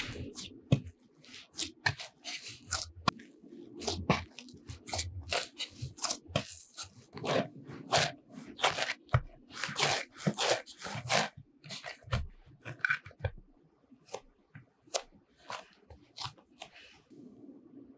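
Bread dough kneaded by hand in a wooden bowl: a busy run of irregular short crackles and clicks as the sticky dough is pressed, pulled and turned. The sounds thin out over the last few seconds as the dough is gathered into a smooth ball.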